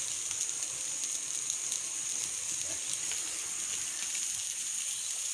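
Sate skewers sizzling on a grill over glowing charcoal: a steady high hiss with faint scattered crackles.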